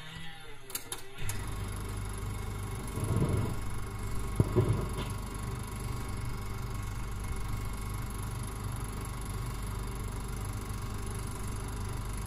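A low, steady rumbling drone with a slow pulsing beat in the bass, swelling briefly around three to five seconds in.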